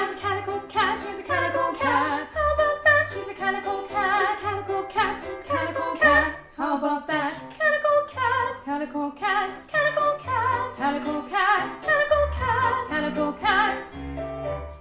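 Two women's voices singing a choir part in harmony, with regular low accompaniment notes underneath.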